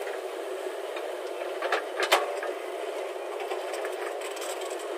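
JCB 3DX backhoe loader running steadily, with two sharp knocks about two seconds in and a few fainter ticks later on.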